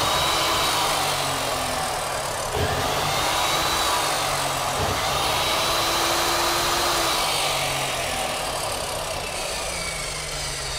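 Huspanda HCD3551 355 mm abrasive cut-off saw with its 2500 W brushed electric motor running at full speed with no load, the cutting disc spinning free. It gives a steady whine that wavers slightly in pitch, and it runs very strongly.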